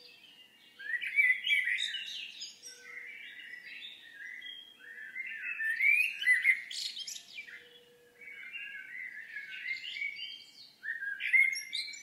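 A songbird singing long, varied warbling phrases one after another, with short pauses between them.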